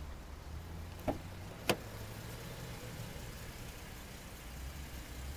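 A car engine idling steadily, with two sharp clicks a little over a second in, about half a second apart.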